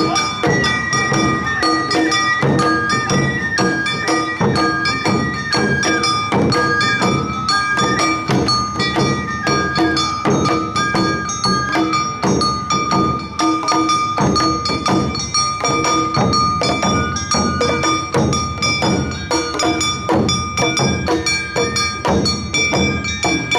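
Awa odori narimono band playing: bamboo flutes carry a melody with one long held high note, over a dense beat of drums and a small hand gong.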